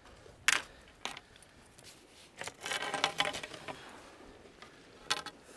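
Small hard gear knocking and clattering with a metallic jingle. There is one loud knock about half a second in and a lighter one a second in, then a rattling spell around the middle and a couple of clicks near the end.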